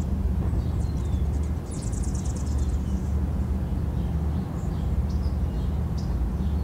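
Outdoor ambience: a steady low rumble with faint, short bird chirps and a brief rattling trill about two seconds in.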